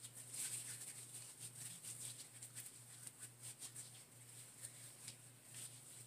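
Hands rubbing body cream into the skin: faint, soft rubbing and light smearing in many short, irregular strokes.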